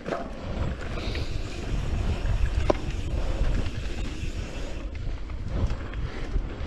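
Wind buffeting the camera microphone over the rumble of mountain-bike tyres on a dirt trail at speed, with the bike rattling and a sharp click about two and a half seconds in.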